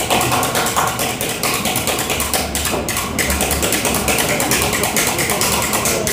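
Rapid, irregular percussive tapping and knocking, with music in the background.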